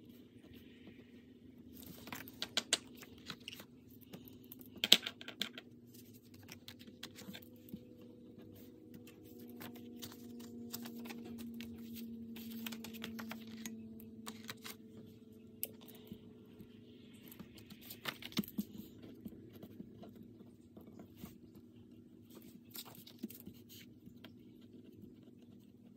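Paper rustling and pen-on-paper writing as loose planner inserts are handled, with scattered light clicks and taps, the sharpest about five seconds in. A faint low hum runs underneath.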